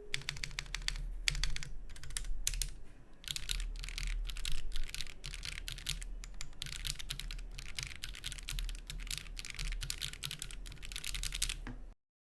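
Fast, continuous typing on a Monsgeek M1 75% mechanical keyboard: a dense run of key clicks, each with a low thud, that stops abruptly near the end.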